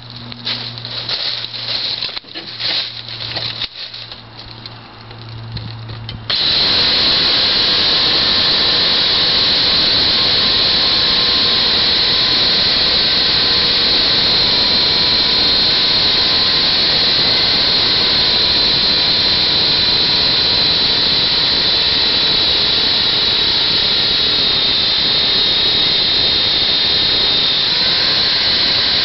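Scattered clicks and rustles, then about six seconds in a Titan electric pole chainsaw starts suddenly and runs steadily with a high whine, its chain cutting into a beech trunk, a very hard wood.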